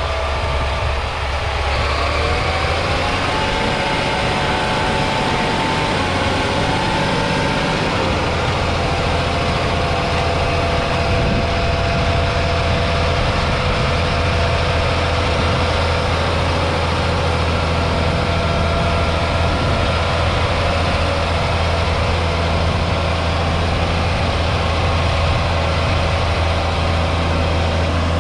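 John Deere 8RX410 quad-track tractor's 9.0-litre six-cylinder diesel working steadily as it pulls away. A whine rises in pitch a couple of seconds in, then holds level as the engine settles under load.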